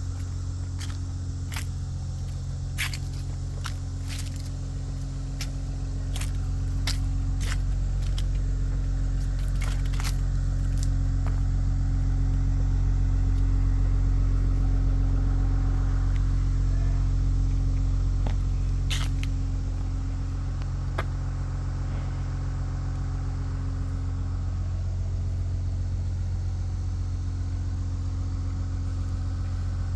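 Jeep Liberty 3.7L V6 engine running at idle, getting somewhat louder for several seconds in the middle and then settling back. Scattered sharp clicks sound over it, mostly in the first half.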